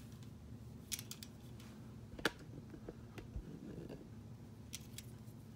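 Light plastic clicks and taps from K'nex pieces being handled and snapped onto the model ride, a few scattered clicks with the sharpest one a little past two seconds in, over a faint steady hum.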